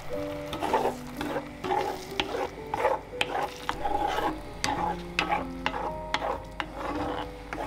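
Wooden spatula stirring eggs into bubbling tomato sauce in a metal frying pan, with irregular scrapes and knocks against the pan several times a second over a light sizzle.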